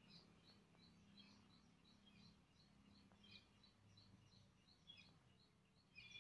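Faint outdoor birdsong: a bird repeating short high chirps about three times a second, with a louder, held call coming in near the end, over a low background hum.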